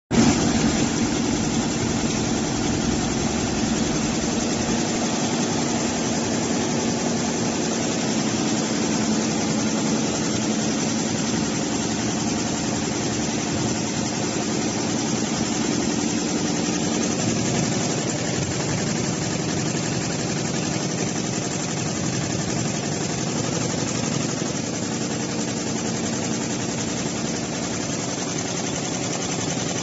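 Voltex eight-head, 12-needle high-speed cap embroidery machine running, all heads stitching caps at once with a steady mechanical sound; a low hum in it eases about halfway through.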